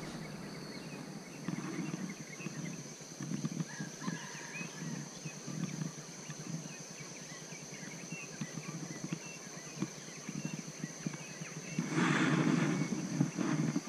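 Riverside forest ambience: a steady high-pitched insect drone with scattered faint bird chirps over low knocks of handling noise. There is a louder rustle near the end.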